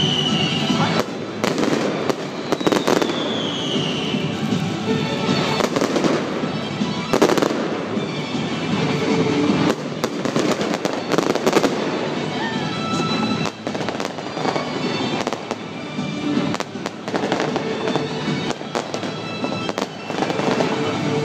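Aerial fireworks display: a dense, continuous run of bangs and crackling bursts, with a falling whistle about three seconds in.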